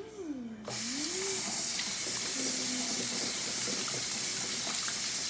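A kitchen sink faucet is turned on about a second in, and tap water then runs steadily into the sink as hands are washed.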